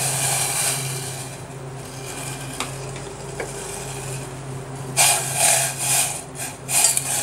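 Dry instant noodles tipped into boiling water in a steel pan, splashing and hissing, then a quieter bubbling. From about five seconds in comes loud, irregular scraping and clattering: the noodles being stirred against the pan's steel sides. A steady low hum runs underneath.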